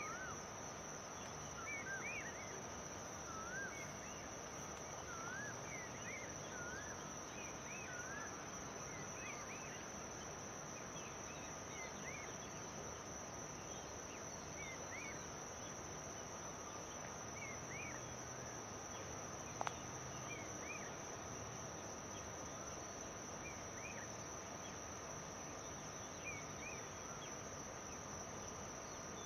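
Outdoor ambience of a steady, high-pitched insect trill that never lets up, with short bird chirps every second or two. One sharp click about twenty seconds in.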